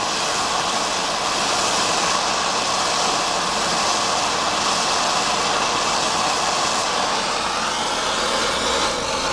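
Gas torch flame running as a steady hiss, heating the sticky pad-adhesive residue on a disc sander's metal plate to soften it for scraping. It cuts off suddenly at the very end.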